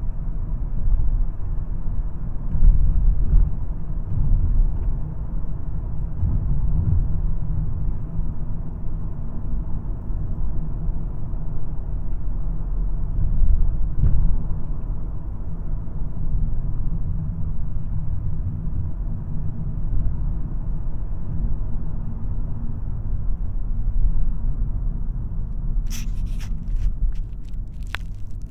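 2022 VW Golf R being driven: its turbocharged 2.0-litre four-cylinder engine and tyres make a steady low rumble with little change in pitch. A few sharp clicks come near the end.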